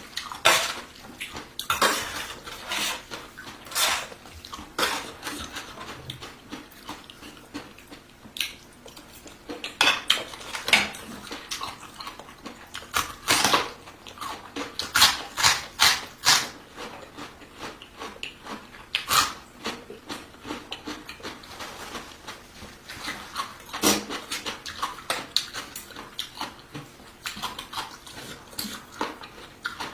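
Cutlery clinking and scraping against a bowl in irregular bursts, with close-up eating sounds of big mouthfuls of rice noodles in curry sauce.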